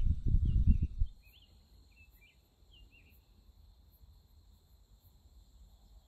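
A low rumbling on the microphone for about the first second, then a quiet field: insects droning steadily at a high pitch while a bird gives short chirps again and again.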